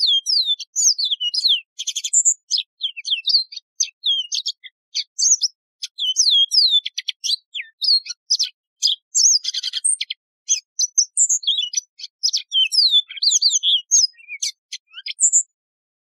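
Yellow-fronted canary singing a long, fast, unbroken song of high sliding whistles and short rapid trills. The song stops about a second before the end.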